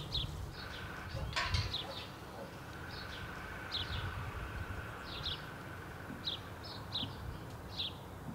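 Small birds chirping outdoors, short high notes repeated every half second to a second, over a low steady rumble of background noise. A single metallic clink sounds about a second and a half in as the steel gate's latch is handled.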